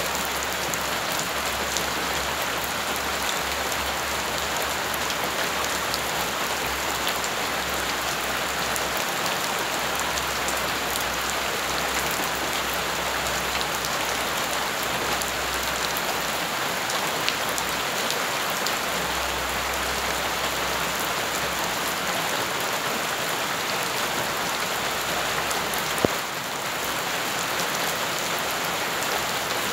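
Steady rain falling on bare earth and gravel, a dense even patter of drops. A single sharp click stands out near the end.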